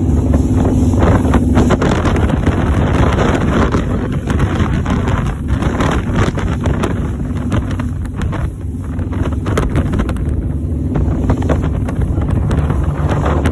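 Speedboat engine running steadily under way, with wind buffeting the microphone.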